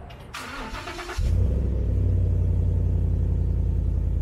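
A 2015 Ford F-150's engine starting, catching about a second in and settling into a steady idle, heard at the tailpipe. The exhaust has just been repaired and is not leaking.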